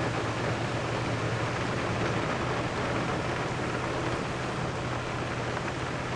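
Heavy rain coming down in a steady, even hiss, with a low steady hum underneath.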